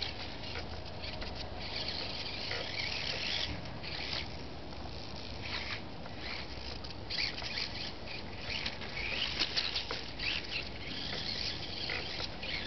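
Micro RC off-road car's small electric motor whining in on-and-off bursts of throttle, its high pitch rising and falling as it speeds up and slows down.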